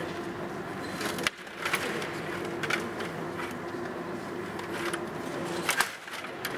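Table hockey play: irregular sharp plastic clicks and clacks as the puck and rod-turned player figures strike each other and the boards, over a steady hum.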